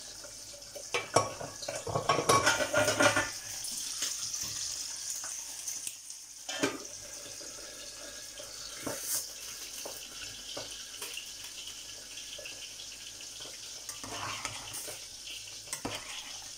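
Boiled lentils tipped from a steel pot into a pot of soup, with metal pots and a slotted spoon clattering and scraping in the first few seconds. Then scattered clinks of the spoon stirring against the pot, over a steady sizzling hiss from the hot cooking pots.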